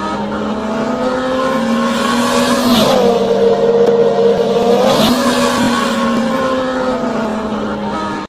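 A vehicle engine running hard at speed over road and wind noise. Its steady pitch drops a little about three seconds in and rises back about two seconds later, where it is loudest.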